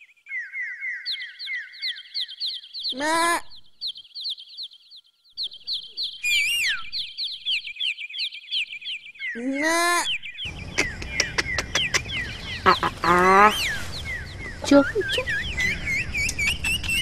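Small birds chirping in quick, repeated phrases throughout, with a few short, rising farm-animal calls: one about three seconds in, another near ten seconds, and two more later. From about ten seconds in, a steady low background rumble joins.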